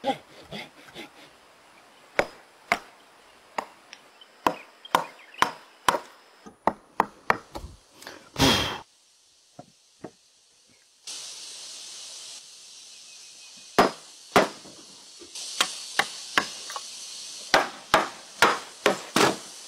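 Hand tools working timber: a run of irregular sharp knocks of hammer and chisel blows on wood, then a stretch of steady scraping hiss in the middle. More hammer blows on a wooden frame follow near the end.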